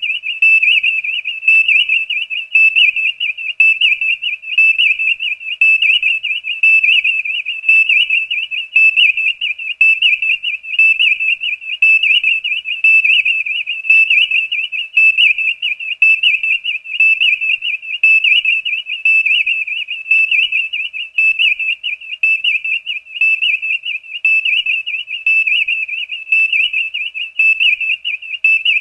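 Star Trek Enterprise viewscreen sound effect: a high electronic warbling tone that pulses evenly, about one and a half times a second, without a break.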